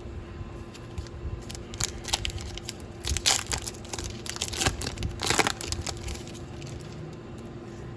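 Foil trading-card pack wrapper crinkling and being torn open, with the loudest rips about three seconds in and again about five seconds in.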